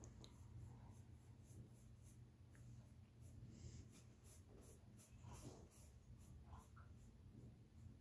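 Faint, irregular scratchy strokes of a small paintbrush dragged over stretched canvas, over a low steady hum.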